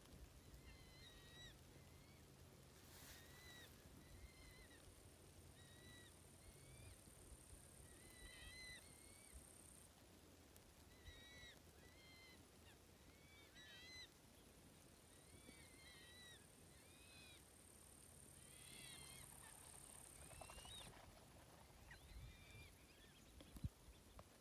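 Faint bird calls: short, rise-and-fall notes repeated one to three at a time, about once a second, over a steady high hiss that comes and goes.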